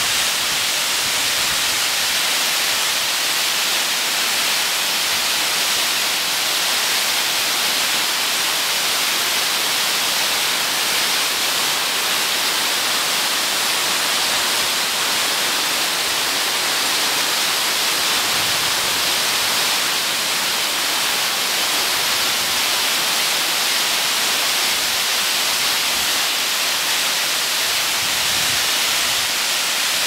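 Waterfall pouring in two streams down a rock cliff: a steady, even rushing hiss of falling water, heavy in the highs with little bass.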